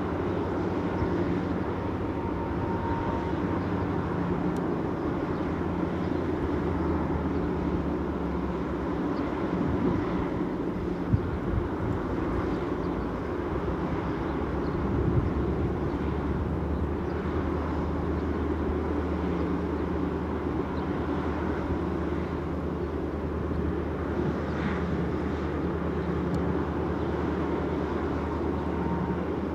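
Diesel-electric freight locomotive engine running with a steady low rumble. A sharp knock comes about eleven seconds in.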